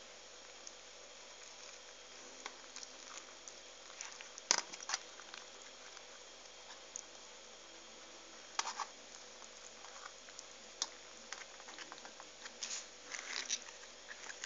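Hands handling and pressing soft cabbage leaves: scattered light crinkling and small clicks, with one sharper knock about four and a half seconds in and a denser run of crinkles near the end.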